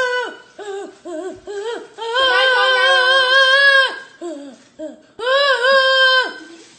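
A high human voice vocalising without words: a run of short sung syllables, then two long held, slightly wavering notes, the first starting about two seconds in and the second about five seconds in.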